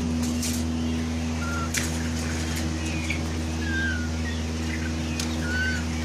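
Young peafowl giving short whistled peeps, scattered calls that glide down in pitch, over a steady low hum with a few sharp clicks.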